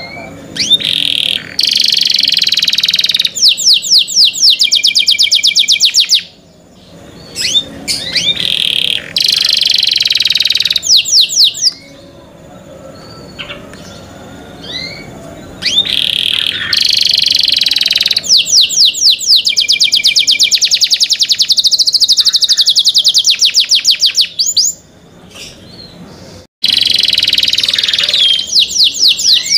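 Domestic canary singing: long phrases of fast rolling trills and sweeping notes, broken by short pauses with single rising chirps. The song drops out suddenly for a moment about three-quarters through, then carries on.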